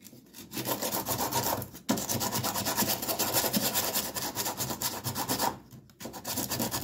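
Hand sanding of fiberglass with a sanding block: rapid back-and-forth scraping strokes, with short pauses about two seconds in and near the end.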